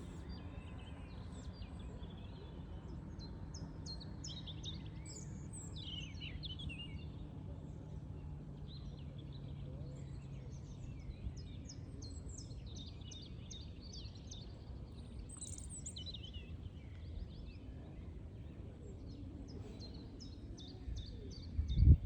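Songbirds chirping and singing, with many short repeated notes, over a steady low outdoor rumble. A faint low hum fades away in the first half, and a loud low thump comes near the end.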